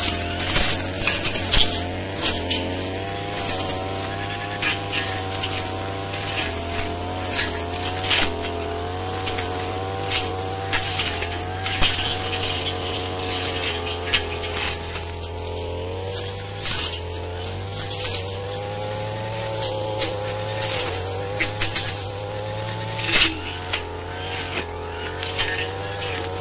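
Brush cutter engine running at high revs, its pitch wavering up and down as the blade works through undergrowth, with frequent short snaps of brush being hit.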